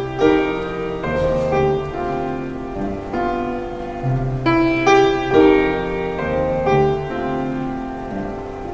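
Piano playing an instrumental passage of a slow hymn, chords and melody notes struck about every half second and left to ring.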